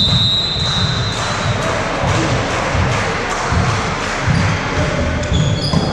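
Indoor volleyball play on a wooden court in a large, echoing sports hall: a steady high whistle blast lasting about a second at the start, then scattered thuds of the ball and players' feet on the floor.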